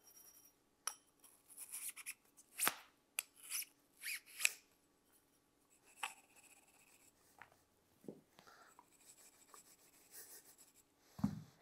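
Bore brush scrubbing inside a shotgun choke tube: short strokes of bristles rasping against the metal, many in the first half and fewer later, with a soft thump near the end.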